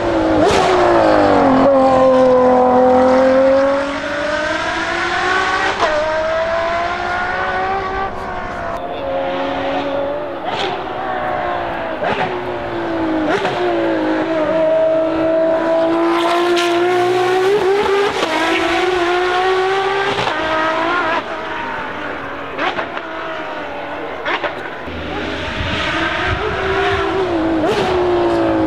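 Ferrari 599XX Evo's naturally aspirated V12 running hard. Its note rises and falls over and over as it is revved through the gears, with several sharp cracks along the way.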